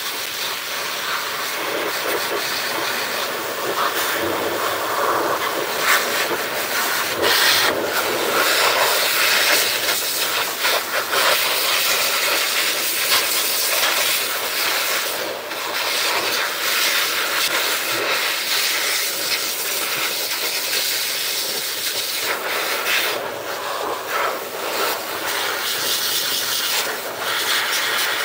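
Pet blower dryer blasting air through its hose nozzle onto a wet cat's fur: a loud, steady rushing hiss that wavers a little in level.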